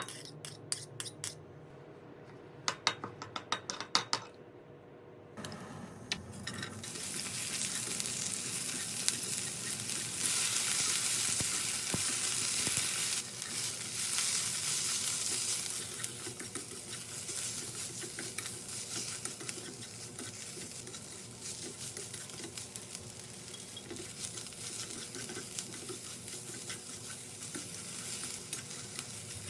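A few sharp clicks and knocks, then about five seconds in a loud sizzle starts as onion and fish cake go into a pan of hot cooking oil. The sizzle settles to a steady frying hiss while they are stir-fried.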